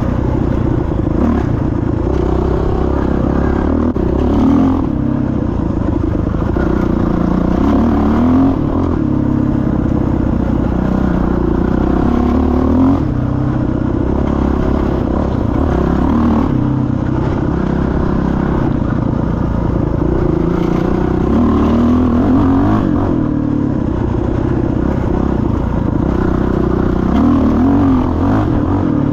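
Dirt bike engine running under load, revving up and down with the throttle so its pitch rises and falls every few seconds, with a few knocks as the bike rides over rough trail.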